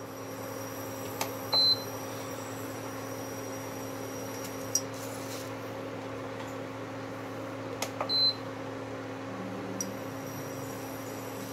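Steady electrical hum of a glass-top cooktop heating oil in a stainless steel pot, with two short high beeps, about one and a half seconds in and again about eight seconds in.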